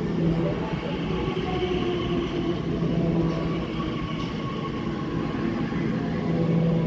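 Elizabeth line Class 345 electric train moving alongside the platform: wheels rumbling on the rails, with steady humming tones from its electric drive over the rumble.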